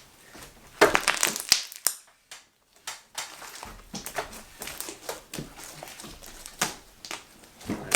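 Slime being stretched and squeezed by hand, giving a run of small sticky clicks and crackles, with a louder burst about a second in and another near the end.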